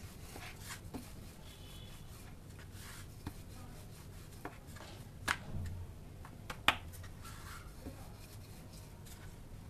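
Wooden rolling pin rolling dough on a wooden board: soft rubbing and light clicks, with two sharper knocks a little past the middle.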